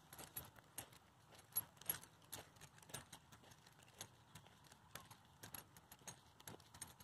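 Faint, irregular jingling and clicking, several times a second, from walking a small dog on a leash over gravel and wood chips: footsteps and the harness and leash hardware clinking.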